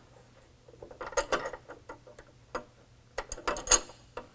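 Light metallic clicks and taps as bolts are dropped down through a steel plate into a running-board mounting bracket. They come in two clusters, about a second in and again near the end, where they are loudest.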